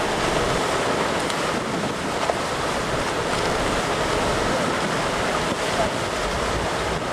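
Steady churning and rushing of water stirred up by a departing ferry's propellers at the quay.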